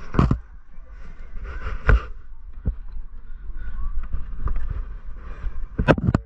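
Irregular bumps, scuffs and scrapes of a person's body and gear against rock while crawling through a narrow cave passage, with a cluster of sharp knocks near the end.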